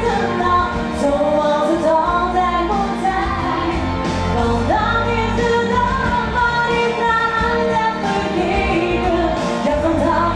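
A woman singing a Dutch-language pop song live into a microphone through PA speakers, with instrumental accompaniment.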